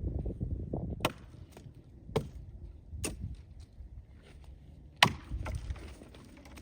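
Cold Steel Trail Boss axe chopping limbs off a felled tree: four sharp strikes into wood, about a second apart with a longer pause before the last, with a few fainter knocks between them.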